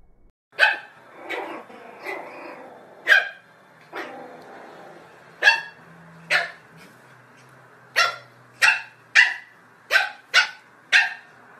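Small white fluffy dog yapping: about a dozen sharp, high barks, spaced out at first and coming faster in the last few seconds.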